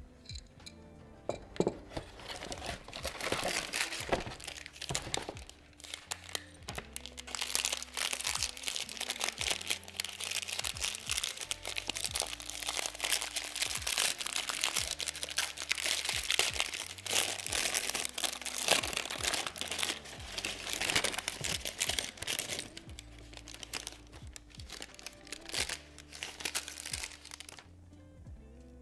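Packaging being handled and opened by hand, a dense run of crinkling and crackling, over background music. The crackle starts about a second in and dies away near the end.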